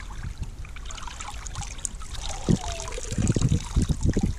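Water splashing and dripping as a large smallmouth bass is lifted out of the river by hand, water running off the fish and arms. The drips and splashes come thicker and louder in the second half.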